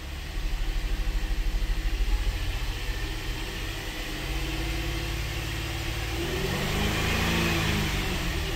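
2012 GMC Acadia's 3.6-litre V6 running, heard from the driver's seat. It pulses at a low idle at first, then is revved up steadily to around 3,000 rpm, with the pitch rising and swinging back down near the end.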